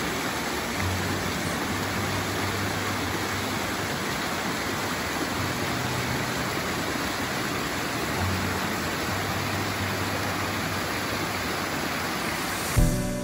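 Mountain stream cascading over mossy boulders: a steady rush of falling water. Music comes in just before the end.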